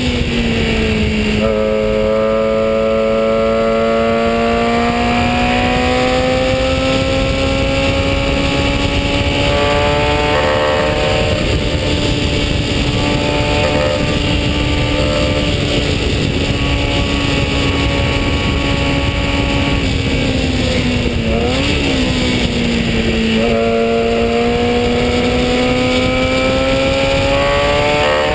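Onboard sound of a 1965 Brabham BT15 historic Formula 3 car's 1-litre engine at full racing revs, with wind rush in the open cockpit. The pitch dips at the start and climbs slowly for most of the time. About 21 seconds in it blips briefly up and down and drops, then climbs again near the end.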